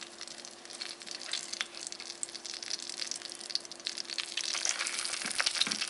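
Hot oil sizzling and crackling in a frying pan as raw curd-cheese patties (syrniki) are laid in one by one; the crackling grows denser toward the end as more patties go in.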